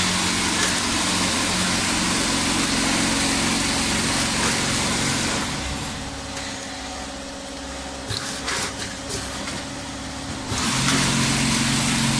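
Automatic vertical form-fill-seal granule packing machine running: a steady mechanical hum with a hiss over it. It drops somewhat in level for a few seconds in the middle, with a few light clicks, and comes back louder near the end.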